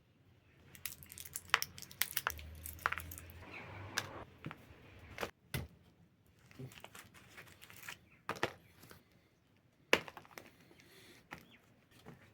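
Irregular crinkling and tearing of dry material with many sharp snaps and knocks, the loudest knocks about a second and a half in and about ten seconds in.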